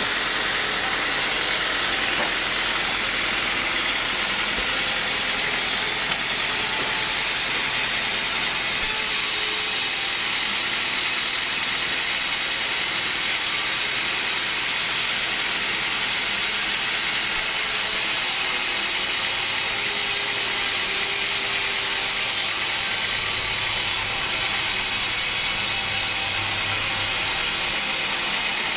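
Band sawmill running, its band blade sawing through a teak log with a steady hiss.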